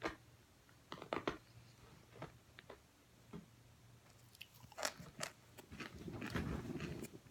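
A person biting into and chewing a crunchy cornstarch chunk. There are sharp crunches about a second in and again around five seconds in, then a run of denser crunching chews near the end.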